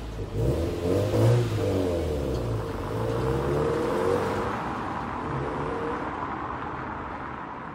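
Subaru WRX STI's EJ20 turbocharged flat-four, freshly rebuilt with HKS forged pistons, pulling away and accelerating, its revs climbing several times. The sound fades steadily as the car drives off.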